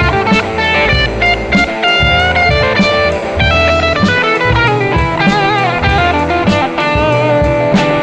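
Blues-rock instrumental passage: an electric guitar plays a lead line with bent, wavering notes over bass and a steady drum beat.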